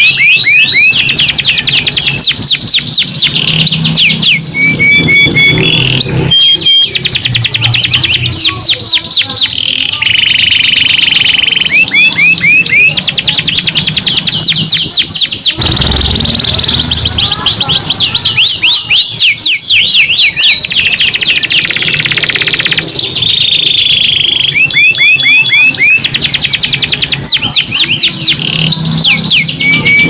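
Domestic canaries singing nonstop in long rolling trills, one run of fast, repeated sweeping notes after another, with the trill type changing every second or two.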